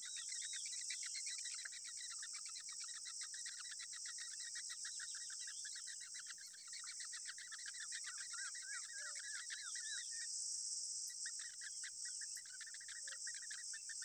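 Rufous treepie nestlings begging in a rapid, unbroken run of short repeated calls, which stop for about a second about two-thirds through. Under them runs a steady high insect drone.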